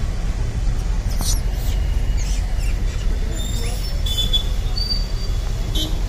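Outdoor background: a steady low rumble with scattered short, high-pitched chirps and whistles.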